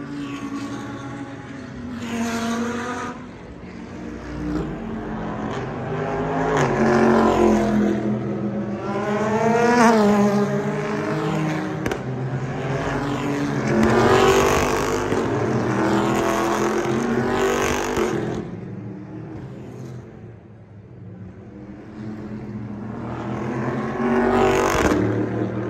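Super GT racing cars passing one after another along the main straight. Each engine note swells and falls away as the car goes by, the loudest passes coming about ten and fourteen seconds in, with a lull near twenty seconds before another car comes through.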